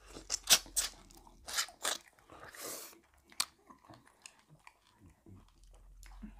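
Close-miked eating of fufu and seafood okra soup: wet chewing with several sharp crunching clicks, the loudest about half a second in.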